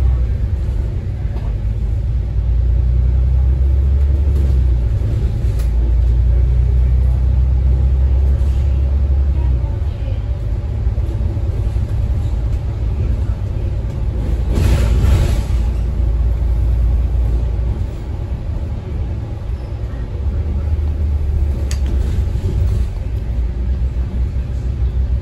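Bus engine running as the bus drives, heard from inside the cabin: a deep rumble that swells for the first ten seconds, eases off, then builds again near the end. There is a brief hiss about fifteen seconds in.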